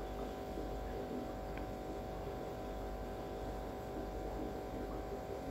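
A steady electrical hum, with faint sounds of a wooden spatula stirring fried idli in sauce in a nonstick pan.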